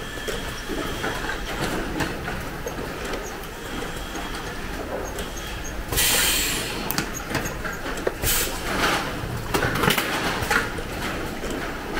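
Assembly-line machinery running steadily, with light clicks of small parts being handled. A loud rush of noise comes about six seconds in, and shorter ones follow a couple of seconds later.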